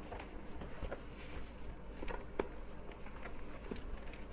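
Light, scattered clicks and rustles of packaging and small boxed items being handled over a low steady hum.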